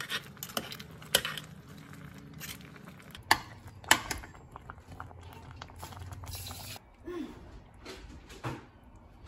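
A spoon stirring thick curry in a pot, with soft scraping and a few sharp clicks of the spoon against the pot, then a ladle scooping curry out.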